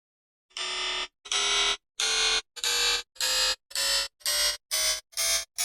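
The same short, harsh sound effect clip looped again and again, starting about half a second in. Each repeat is shorter and follows sooner than the last, so the bursts speed up steadily, from about one a second to about three a second.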